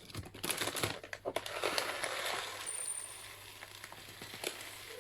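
Dry rice grains rustling and crackling as they are poured into and pressed inside a sock, busiest in the first couple of seconds, then fainter scattered clicks.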